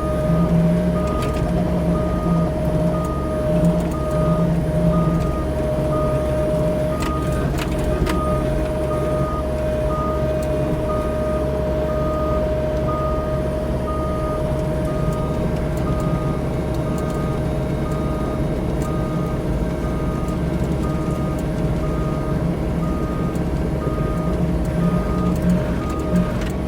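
CAT 304 E2 mini excavator's diesel engine running steadily with a constant hydraulic whine while clearing brush, and a beeping alarm repeating at an even pace. A few sharp knocks about seven to eight seconds in.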